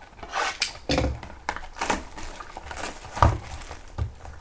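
Plastic shrink-wrap being slit with a box cutter and torn off a small cardboard trading-card box: a run of short crinkling, tearing scrapes, with one louder thud about three seconds in.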